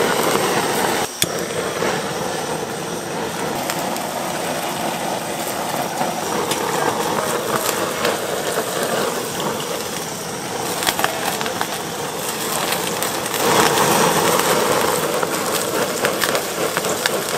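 Handheld butane blowtorch hissing as it sears butter-basted shrimp skewers on a flat-top griddle, with the butter sizzling and crackling. It grows louder for a couple of seconds near the end as the flames flare up.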